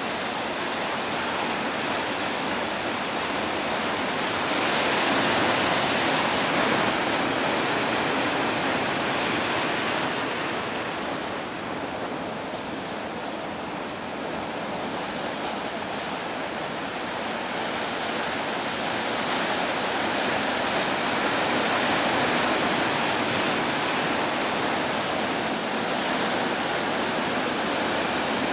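Ocean surf: waves breaking and white water washing toward shore, a continuous rushing noise that swells louder about five seconds in and again about two-thirds of the way through.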